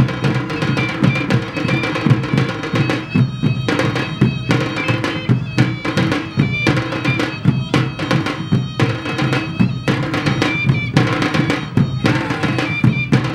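Minangkabau tambua drums and a small tansa drum beaten together in a fast, dense rhythm, over a steady droning wind instrument with short high piping notes.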